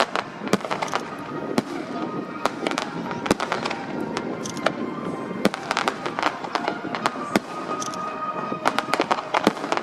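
Aerial fireworks bursting overhead: irregular sharp bangs and crackling, with thicker volleys about halfway through and again near the end.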